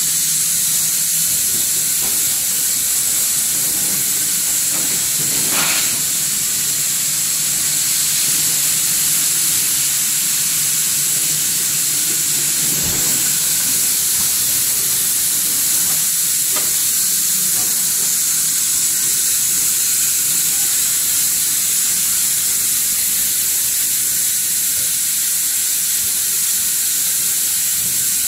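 Blow molding machine running, making plastic wet-wipe canisters: a steady loud hiss of air and machinery, with a few faint knocks from the machine spread through it.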